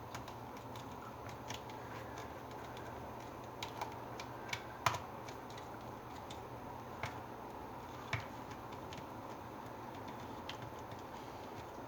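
Light, scattered clicks and taps of a multi-tool's bit driver and a hammer drill's plastic housing being handled while its Torx screws are undone, with a sharper click about five seconds in and another about eight seconds in.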